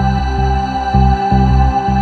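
Background music: a slow ambient track with sustained tones over a pulsing bass.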